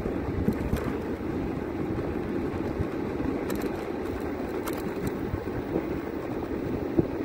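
Steady engine and road noise of a moving vehicle, heard from inside it, with a few light clicks, the sharpest about seven seconds in.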